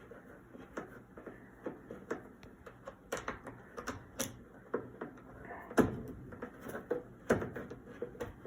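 Socket wrench ratchet clicking in quick, uneven runs as a long screw is backed out of an Amana washing machine, with two louder knocks in the second half.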